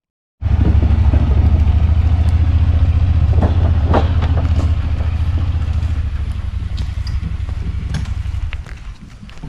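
A motor vehicle's engine running with a deep, rapid pulsing, with a few knocks and rattles over it. It drops away shortly before the end.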